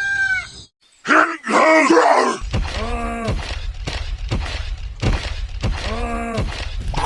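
A voice groaning as an added sound effect: a cry about a second in, then two long moans that rise and fall in pitch, over a low rumble.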